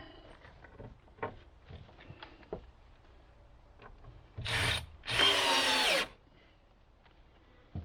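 Power drill driving screws into wood: two bursts, a short one and then a longer one whose motor pitch drops as it slows under load. Small knocks of handling lumber between.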